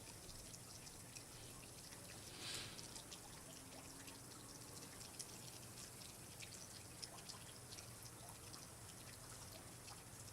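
Faint water dripping and trickling, with many small scattered drips and a brief louder swish about two and a half seconds in.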